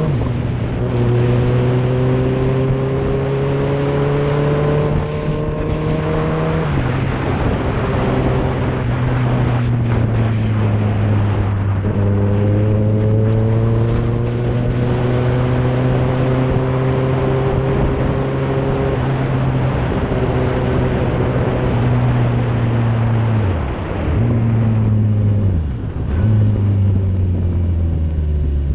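Motorcycle engine pulling steadily through the revs. Its pitch climbs, then drops at a gear change about six seconds in and climbs again. Near the end it dips sharply twice as the throttle comes off. A steady rush of wind and wet-road noise runs underneath.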